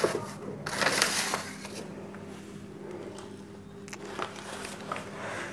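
Quiet room noise: a steady low hum, with a brief rustle about a second in and a few faint clicks.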